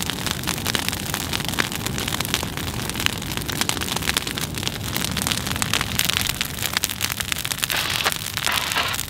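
Burning brush pile crackling steadily, a dense run of small irregular pops.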